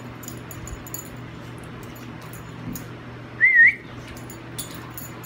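Dog play-wrestling. About three and a half seconds in, one dog gives a short, high, wavering whine, the loudest sound, over light clicking and scuffling.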